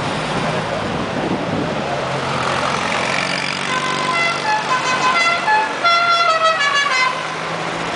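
Passing classic cars' engines running, with a musical car horn playing a quick tune of short notes stepping up and down in pitch for about three seconds, starting about four seconds in.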